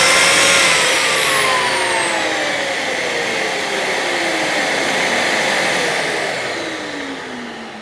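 A power tool coupled to an auto-start wet/dry vacuum, switched off after a brief run. Their electric motors wind down, with a whine that falls steadily in pitch and fades toward the end.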